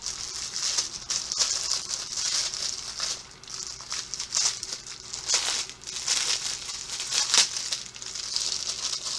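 Plastic packaging crinkling and rustling in the hands as a fidget toy is unwrapped, with irregular sharper crackles.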